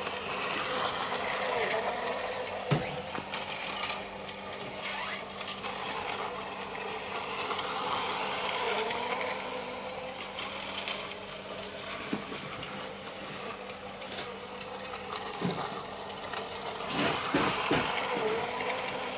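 Battery-powered toy train, a model diesel locomotive pulling a plastic carriage, running around a plastic track with a steady whir of its small geared motor and clatter of its wheels. It grows louder as the train passes close near the start and again near the end, with a few sharp clicks from the track.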